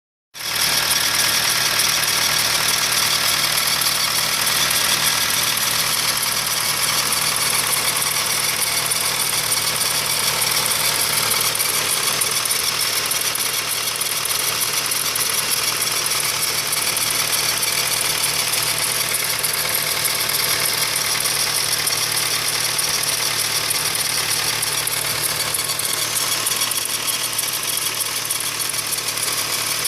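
Hyundai Sonata NF 2.4 four-cylinder engine idling steadily, with an extraneous noise from the engine bay that the owner hears in the mornings.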